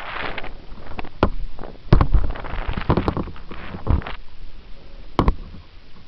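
Water splashing and sloshing around the onboard camera of a small radio-controlled jet sprint boat as it tumbles in rough waves. Sharp knocks of the hull slamming the water come about a second in, hardest with heavy thumps at about two seconds, and again near the end.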